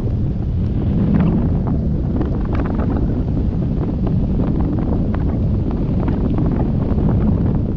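Strong wind buffeting the microphone of a camera hung from a kite line, a steady heavy rumble, with frequent small ticks and rattles scattered through it.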